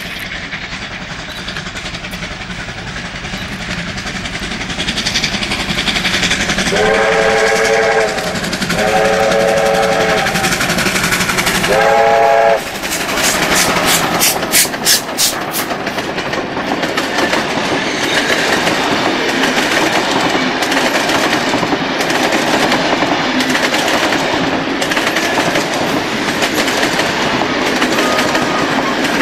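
Two R class 4-6-4 steam locomotives double-heading a passenger train approach with a building exhaust and sound three blasts on the steam whistle about seven seconds in. They then pass close with sharp, rapid exhaust beats, followed by the carriages rolling by with wheels clicking over the rail joints.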